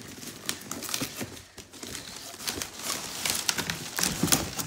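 Cardboard box being torn and pulled open by hand: tearing, rustling and scraping of cardboard with many small irregular clicks and knocks.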